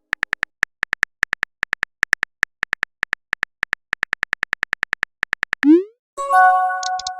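Chat-app typing sound effect: a fast run of short, even clicking ticks, about five a second. It stops just before six seconds, followed by a quick rising swoop and a bright ringing notification chime of several notes that fades away.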